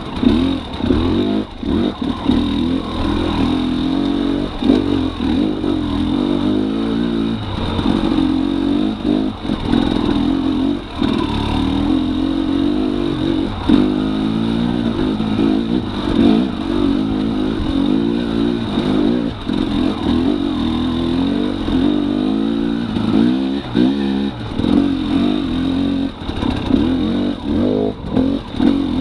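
The two-stroke single-cylinder engine of a 2018 Husqvarna TX300 dirt bike under way, its pitch rising and falling with constant throttle changes. Brief knocks and clatter come from the bike over rough ground.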